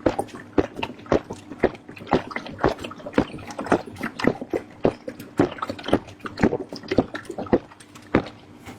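Close-up wet chewing and lip-smacking of braised lamb head meat, a quick run of sharp smacks, about three to four a second.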